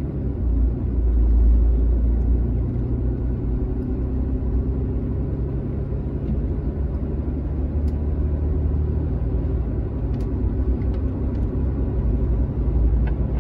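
Steady low rumble inside a truck cabin, with a faint hiss from a Yaesu FTM-400 radio's speaker as it sits open on the ISS downlink between transmissions.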